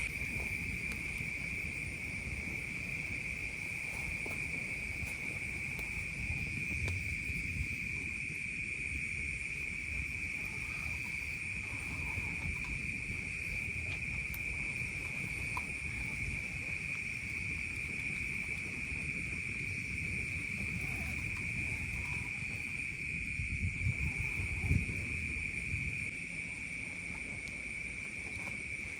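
Steady night chorus of insects, one unbroken high-pitched trill, over a low rumbling background, with a few soft thumps near the end.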